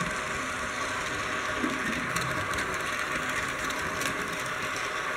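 Model railway train running past on metal track: a steady whirring of its electric motor and wheels, with a few light clicks as the wheels cross rail joints.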